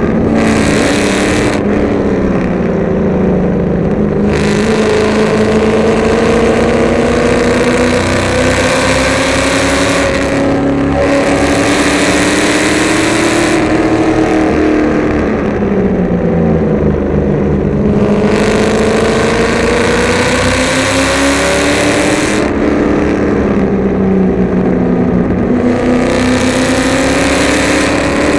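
Carbureted Ford 351 Windsor small-block V8 in a BMW race car, heard from inside the cabin, pulling hard through the gears at racing speed. Its pitch climbs steadily for several seconds at a time and drops back each time the driver lifts or brakes for a corner. A loud rush comes and goes with the throttle.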